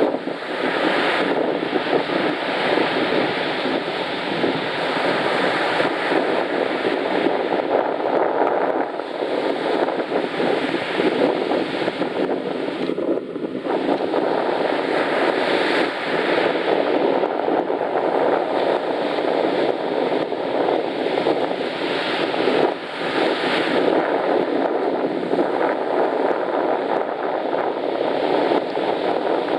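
Strong wind buffeting the microphone over the steady wash of surf on the shore.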